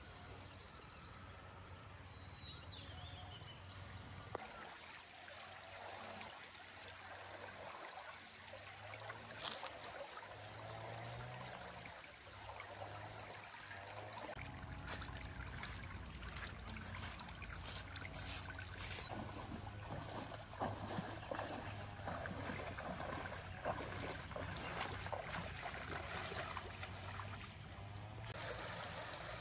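Shallow stream flowing over stones with a steady trickling rush, with a few light knocks scattered through it.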